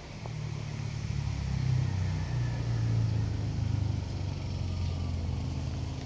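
Low, steady engine hum, as of a motor vehicle running nearby. It grows louder over the first two seconds, then eases off a little.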